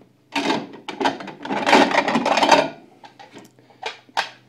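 Deep plates clattering against each other as they are taken out of a wooden kitchen cupboard, followed by a few lighter knocks and clinks over the last second and a half.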